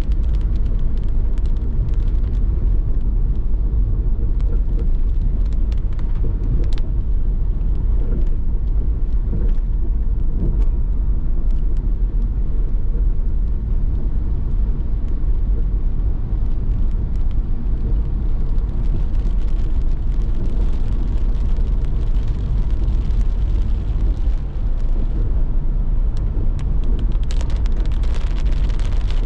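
Steady low rumble of a car driving, road and engine noise, with scattered faint ticks. A brighter hiss joins about two-thirds of the way through.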